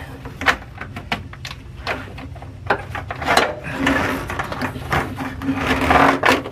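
Ribbed plastic hose and a plastic part rattling, scraping and clicking as they are worked loose and pulled off under a truck. Many sharp clicks and knocks, with longer scraping stretches about three and a half seconds and six seconds in.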